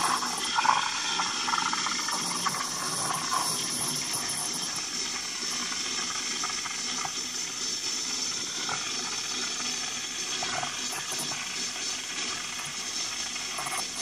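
DeLonghi EC220 espresso machine's steam wand, fitted with a thick plastic frothing tip, hissing steadily with small crackles as it steams and froths milk in a mug.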